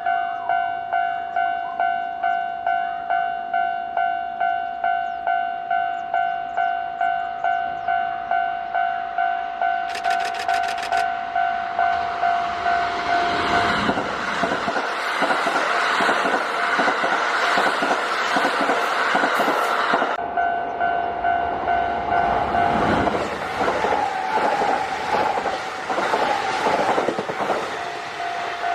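Japanese level-crossing warning bell ringing about two strikes a second. A Kintetsu Osaka Line train passes from about twelve seconds in with rumbling and wheel clatter, and more train noise follows around twenty-three to twenty-seven seconds while the bell keeps ringing.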